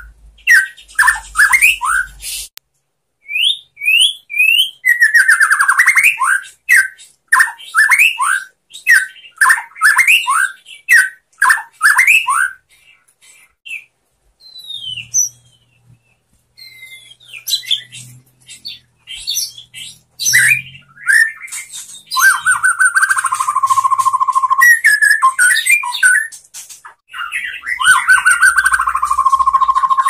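Male white-rumped shama singing: a fast string of short, downward-sweeping whistled notes, a sparser stretch of scattered notes about halfway through, then longer warbled phrases near the end.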